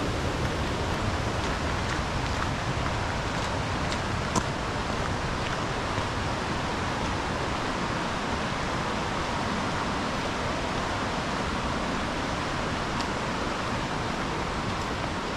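Steady rushing of flowing creek water, an even hiss, with a single sharp click about four seconds in.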